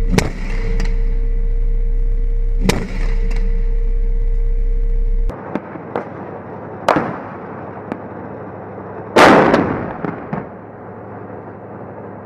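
An armoured vehicle's engine running steadily with sharp gunshot cracks over it; after about five seconds the engine sound cuts away and scattered gunshots follow, then a heavy blast about nine seconds in, the loudest sound, rumbling away over about a second.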